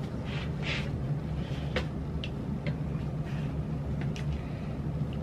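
Plastic bassinet frame parts being handled and fitted together: a few light, sharp clicks and some soft rustling over a steady low background hum.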